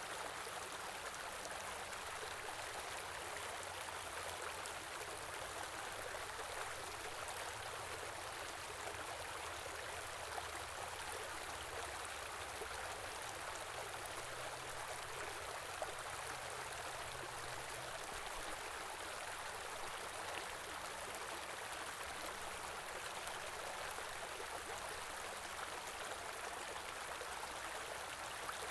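A stream of running water flowing in a steady, even rush.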